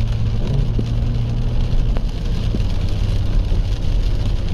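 Inside a moving car in the rain: a steady low engine and road rumble with a hiss of rain on the car, and a few faint ticks.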